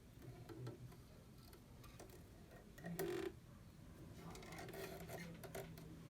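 Faint scattered light clicks and ticks, with one short, duller knock about three seconds in.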